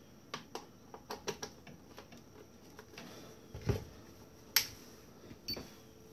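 Small clicks of cables and a plastic-cased battery charger being handled, a low thump about three and a half seconds in as the charger is set down on the counter, then a sharp click. Near the end, as the Dynamite Passport Ultra Force Duo charger powers up, a short high beep and then a faint steady hum.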